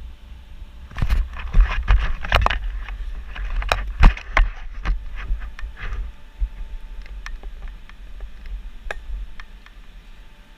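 Close handling noise on a body-worn action camera: a flurry of knocks and clicks with a low rumble over the first half, then sparser ticks and rubbing as the cyclist sorts out his gear.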